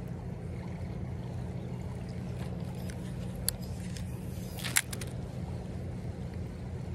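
Steady low rush of a flowing creek, with two short sharp clicks about halfway through, the second the louder.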